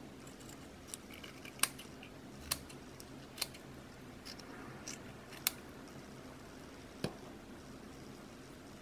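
Steel scissors snipping through a rubbery squishy stress ball: about seven short, sharp snips at uneven intervals, with a steady low background hum.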